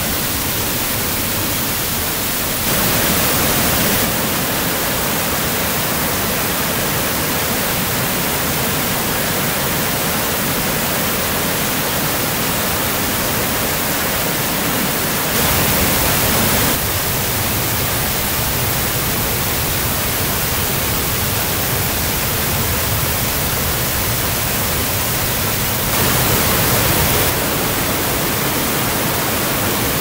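Waterfalls in high water, swollen by snowmelt and heavy rain: a steady, loud rush of water pouring over the falls and churning below, briefly louder three times.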